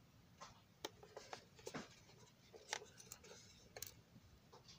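Faint, scattered clicks and taps of an MTH O-gauge passenger car's plastic body being handled and turned over in the hands.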